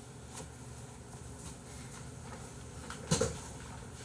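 Quiet room tone, with one brief, louder sound about three seconds in as a man settles into a chair.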